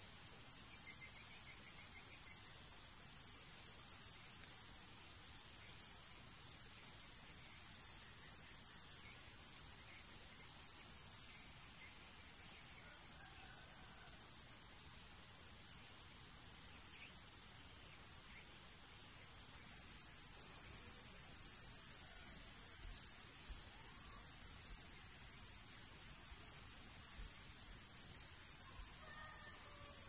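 A continuous high-pitched insect chorus, a steady shrill trill that gets louder about two-thirds of the way through.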